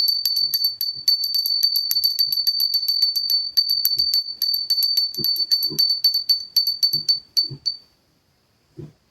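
Small hand bell rung rapidly, about five strokes a second on one high ringing note, until it stops and rings off a little before the end. A few soft low knocks sound among the ringing and once more after it.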